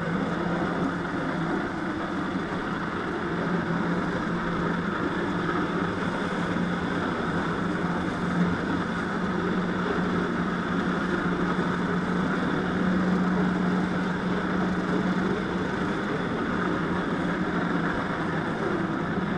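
Jet ski engine running steadily to drive a flyboard, a continuous hum over a dense rushing noise, a little louder about two-thirds of the way through.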